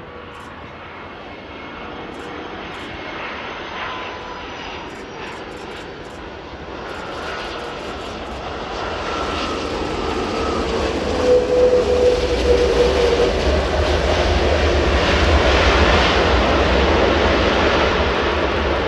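Boeing 777 jet airliner taking off, its engines at takeoff thrust, the roar growing steadily louder as it comes closer, with an engine whine sliding slightly down in pitch as it passes.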